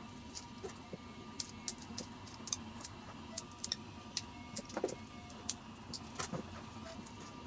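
Scissors snipping a paper straw into short pieces: a run of small, sharp, irregular snips and clicks.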